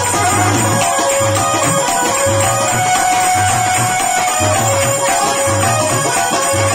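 Telugu devotional bhajan music: small hand cymbals jingling with a low drum beat repeating about once a second, over a steady held melodic drone.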